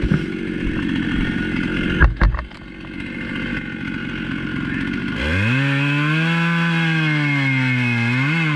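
Husqvarna chainsaw on an Alaskan chainsaw mill idling, with a few knocks about two seconds in. About five seconds in it is throttled up to a steady high-pitched run, sagging and picking up again briefly near the end.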